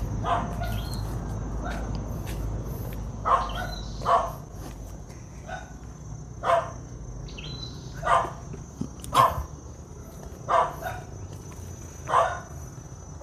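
A dog barking repeatedly, single barks a second or two apart, starting about three seconds in.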